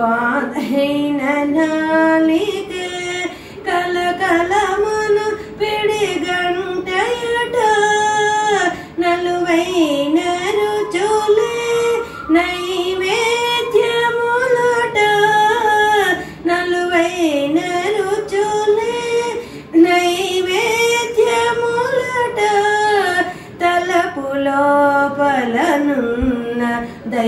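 A woman singing a devotional song solo with no instruments, in long held notes that glide up and down, with brief pauses for breath between phrases.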